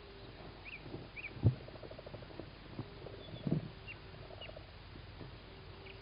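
Tawny owl chicks shifting about in a wooden nest box, claws and bodies scratching and bumping the wood, with a sharp thump about 1.5 s in and another about 3.5 s in. Faint short high chirps sound now and then.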